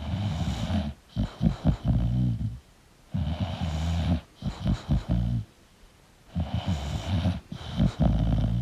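English bulldog snoring in its sleep: about three snoring breaths, each trailing into a rapid fluttering stutter, with short quiet gaps between them.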